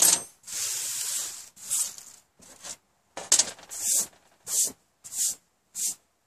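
Dry leaves crunching and rustling as a hand sweeps them across a tabletop, with a sharp crunch at the start and a longer sweep just after. Then about five short brushing strokes as the hand brushes the table clear.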